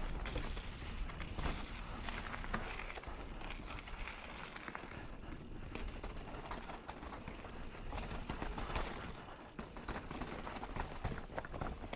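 Mountain bike riding over dirt and stone-paved trail: tyres rumbling and crunching over rock, with the chain and bike rattling and clicking throughout.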